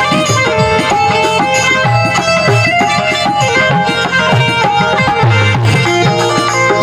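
Harmonium playing a stepping melody over a steady dholak rhythm, in Rajasthani devotional bhajan music.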